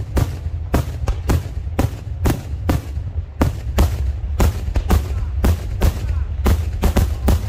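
Daytime aerial fireworks: a rapid, irregular string of sharp shell bursts, about three bangs a second, over a steady low rumble.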